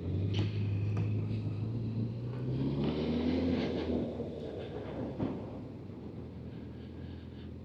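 Honda CB1000F's inline-four engine pulling away under throttle, its note rising steadily in pitch for about three seconds, then easing off, heard from inside the rider's helmet with the visor down.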